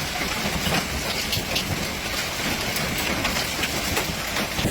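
Heavy rain pouring down steadily, with many scattered sharper taps of drops striking a surface.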